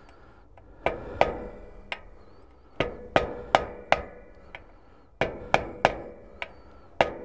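Hammer striking a steel drift held on the outer race of the drive shaft bearing, tapping the bearing down into the David Brown 880 clutch pressure plate. There are about a dozen sharp metallic taps in short groups of two to five, each with a brief ring.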